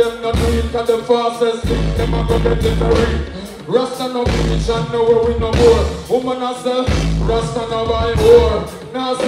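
Live reggae band music played loud through a concert sound system, with heavy bass notes on the beat and a male vocalist singing into a microphone over it.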